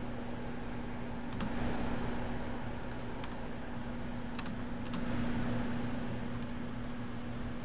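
MacBook Pro laptop keyboard being typed on: scattered key clicks, a few at a time with pauses between, over a steady background hum and hiss.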